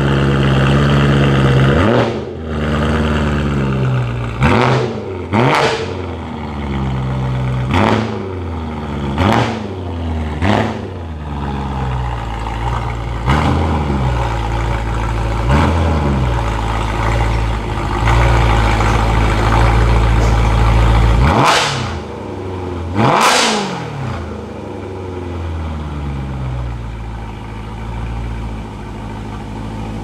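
BMW E92 M3's 4.0-litre S65 V8 idling with about ten quick throttle blips, each a sharp rise and fall in revs. A steadier, louder stretch of running comes before the last two blips.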